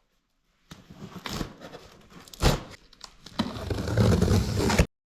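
Cardboard box and packaging being torn, scraped and crinkled open, with a sharp knock about halfway through; the handling gets louder near the end, then cuts off suddenly.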